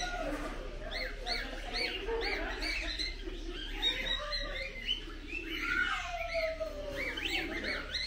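Many caged parrots chirping and squawking together: a continuous stream of short, quick chirps, with a few longer sliding calls mixed in.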